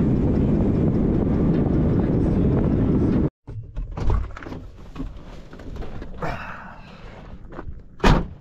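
Steady rush of road and wind noise in the cab of a Chevrolet van driving with the window open. It cuts off suddenly about three seconds in. After that, quieter cab noise with scattered clicks and knocks, and a sharp thunk near the end.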